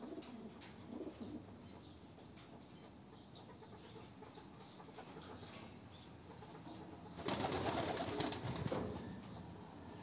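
Domestic pigeons in a wire-mesh loft: two short low coos near the start, then, a little past the middle, a loud burst of wing flapping lasting about a second and a half.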